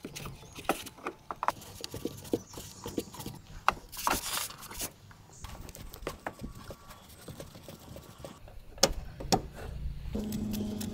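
Hand screwdriver backing out dirty screws from an air-conditioner duct: scattered small clicks, scrapes and handling knocks, with a short rasping rush about four seconds in and two sharp clicks near nine seconds. A low steady hum comes in near the end.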